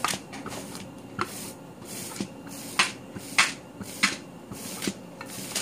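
A wooden-handled rolling pin being pushed back and forth over raw ground meat, giving a series of sharp clicks and knocks at irregular intervals, roughly one a second.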